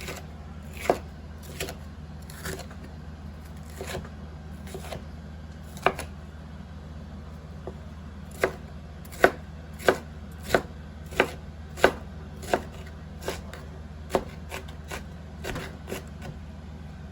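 A knife chopping green bell peppers on a cutting board in single sharp strokes. The strokes are sparse at first, then a steadier run of louder chops comes about every two-thirds of a second in the middle. A low steady hum runs beneath.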